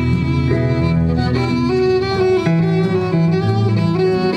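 Fiddle playing a melody, with its notes changing every fraction of a second, over steady lower band accompaniment.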